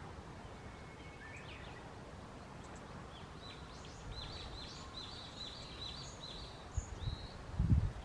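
Tit calling in the treetop: a few faint notes about a second in, then a run of high, thin, down-slurred notes repeated about three times a second. Near the end come two low thumps, the second the loudest sound.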